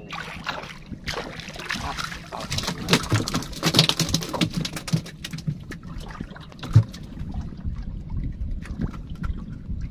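Sea water splashing and slapping against the hull of a small wooden boat, with scattered knocks and one louder thump about seven seconds in.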